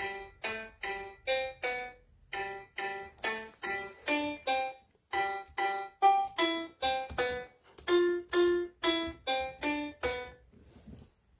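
Contixo robot puppy toy playing an electronic piano-like tune through its built-in speaker: a melody of short separate notes, about two or three a second, with two brief pauses, stopping near the end.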